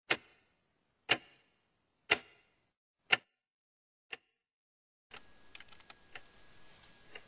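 Wall clock ticking once a second, five sharp ticks with the last one fainter. About five seconds in the ticking stops and computer keyboard typing takes over, light irregular key clicks over a low hiss.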